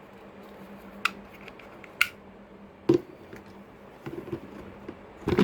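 Hard plastic parts of a wet and dry vacuum cleaner being handled: a few sharp clicks and knocks about a second apart, a quick cluster of taps, then a louder knock near the end, over a faint steady hum.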